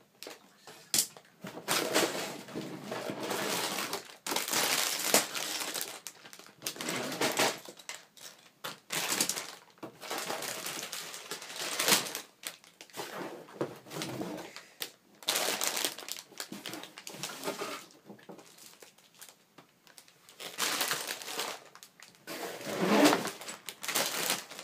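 Plastic bags of Lego pieces crinkling and rustling as they are handled and piled together, in irregular bursts with short pauses between them.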